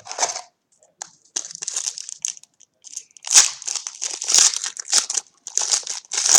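Crinkling of a trading-card pack wrapper being handled and torn open, in dense, irregular crackles that start about a second in.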